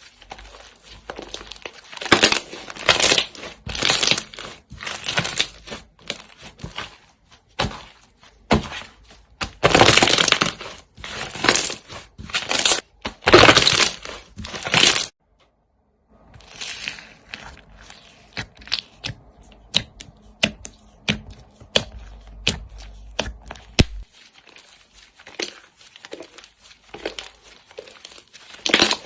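Slime being squeezed and pressed by hand, giving loud crunchy crackling bursts for the first half. After a sudden brief gap, quieter scattered crackles and pops follow.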